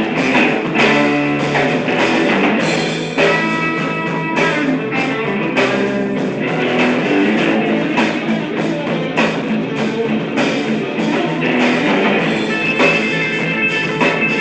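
Music with plucked guitar and drums.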